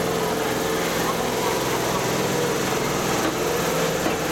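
Kintetsu electric train moving slowly along the platform, with a steady motor hum.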